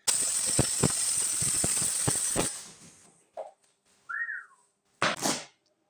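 Welding arc laying a short bead: a steady crackling hiss full of sharp pops for about two and a half seconds, then cutting out. About four seconds in comes a short whistle-like note that rises and falls, and a brief hiss near the end.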